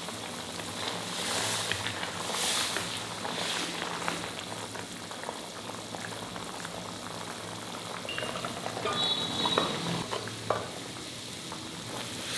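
Sambar ingredients sizzling and bubbling in a cooking pan, with scattered small crackles and a short ringing clink about nine seconds in.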